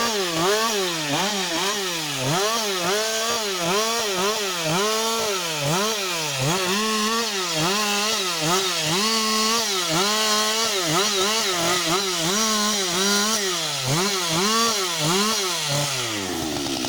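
Husqvarna 560 XP two-stroke chainsaw cutting through a fallen tree trunk. The engine pitch dips and recovers about every two-thirds of a second as the chain bites under load. Near the end the throttle is released and the engine drops to idle.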